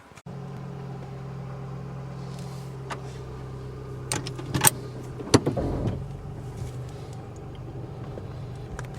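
A car engine running steadily, with a few sharp clicks a little after halfway, then a deeper low rumble joining in.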